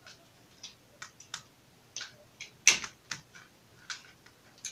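Light, irregular clicks and taps of small objects being handled on a table, about a dozen scattered through, the loudest one about two and a half seconds in.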